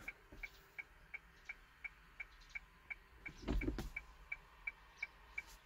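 The hazard-light flasher of a 1-ton Hyundai Porter truck ticking steadily, about three clicks a second, with the engine off. A short bump of handling noise comes about three and a half seconds in.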